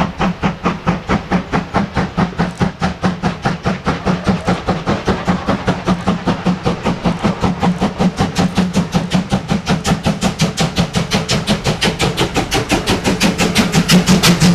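Steam locomotive working hard as it approaches and passes with a passenger train: sharp exhaust chuffs speeding up from about three and a half to about five a second, growing louder as it comes alongside near the end, over a steady low hum.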